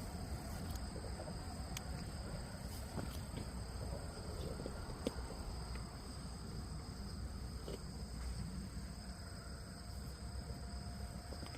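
Steady high-pitched insect chorus holding two even tones, with a low rumble underneath and a few faint clicks.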